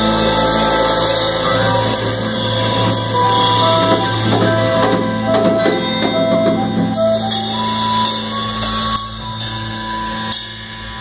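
Live electric blues band playing an instrumental passage: drum kit, electric bass and electric guitars, with blues harp (harmonica). A run of short repeated high notes comes in the middle, and the band eases down in loudness near the end.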